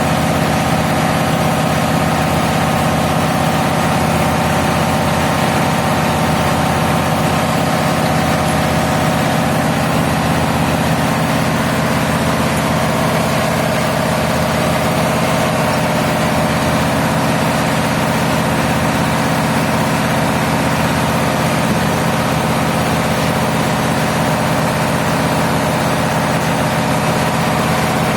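Large diesel engine running steadily at constant speed, a continuous low hum with no change in pitch.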